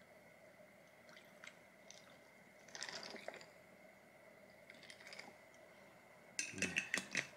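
Cold brew coffee poured from a glass bottle over ice in a glass: a faint trickle with soft scattered clicks and crackles from the ice. Near the end comes a quick run of louder clicks and knocks.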